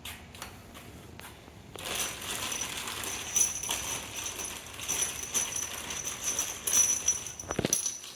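A steel pin being worked through the holes of a hammer and the rotor plates of a hammer mill grinder: metal scraping and clinking with a thin high ringing, ending in a sharp metal knock near the end.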